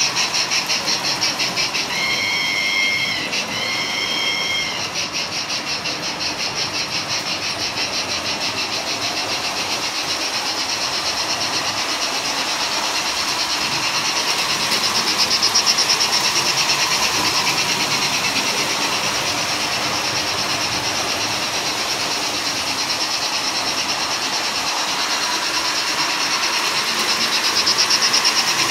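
MERKUR steam sound module in a JEP 141 P tinplate model steam locomotive playing rapid, steady steam-engine chuffing as the locomotive runs, with a two-part whistle blast about two to five seconds in.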